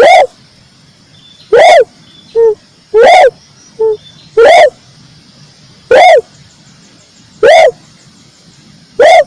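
Red turtle dove calling loudly: a short, arched coo repeated seven times, about every one and a half seconds, with a fainter short note between some of the calls.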